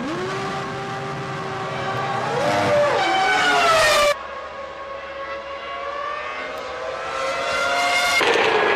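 1999 Formula One cars' 3-litre V10 engines running at high revs, the pitch rising with the revs and falling away as cars pass. The sound changes abruptly twice, once about four seconds in and once near the end.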